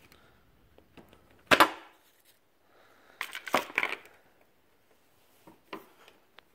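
Knocks and clatter of parts and tools being handled on a workbench: one sharp knock about a second and a half in, a burst of clatter around three and a half seconds, then a few light clicks.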